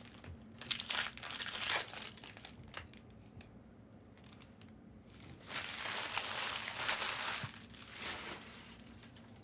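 Trading-card pack wrappers crinkling and tearing, in a few short bursts and then a longer stretch of crinkling a little past halfway.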